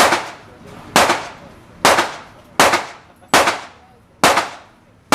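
Seven gunshots fired one at a time at an even pace, about a second apart, each followed by a short echo trailing off.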